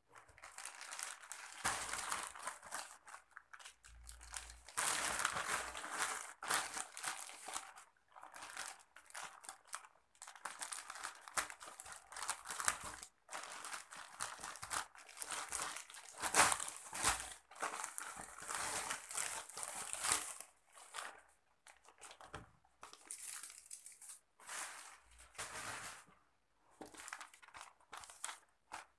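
Plastic courier mailer bag crinkling and rustling in the hands as it is opened, in irregular bursts with short pauses; near the end, paper rustles as the invoice is handled.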